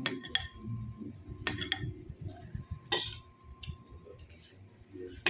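A spoon clinking against a plate of rice several times, sharp separate clinks as the food is scooped up, with low mouth noises of eating between them.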